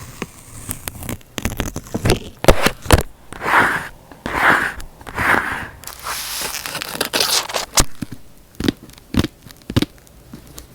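Paper and stationery being handled on a journal page: scattered taps and clicks, three short scratchy strokes a few seconds in, then a longer hiss, and a few more taps near the end.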